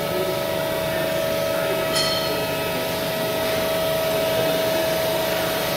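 Steady industrial machine hum with a constant high whine running through it, with a small click about two seconds in.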